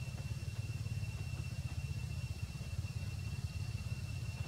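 Steady low rumble with a faint, steady high-pitched whine above it.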